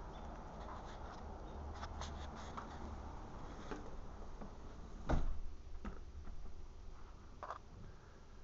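Scattered light clicks and knocks, with one louder thump about five seconds in and a low rumble in the first half, as the phone camera is carried and swung around.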